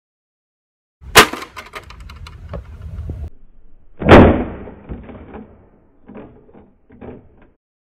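Traxxas Nitro 4-Tec 3.3 on-road RC car crashing down from a jump: a sharp crack about a second in, followed by rattling and scraping, then a heavier crash about four seconds in that dies away, and two smaller knocks near the end.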